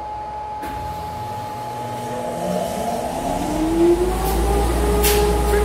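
Electric motor on a ShopBot CNC router setup switching on and spinning up: a whine rises in pitch for a couple of seconds, then settles about two-thirds of the way in into a steady, louder, very noisy run.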